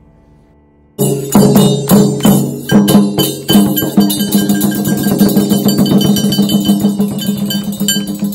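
Taiko drumming starts suddenly about a second in. A rope-laced barrel drum is struck with a stick, first in spaced beats about three a second, then in a faster, denser run, each stroke ringing with a clear pitch. A bright metallic ringing sounds over the drum.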